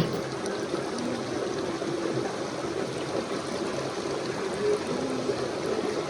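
A stream of water running steadily.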